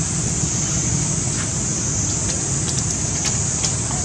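Steady outdoor background noise: a low rumble under a constant high hiss, with a few faint ticks in the second half.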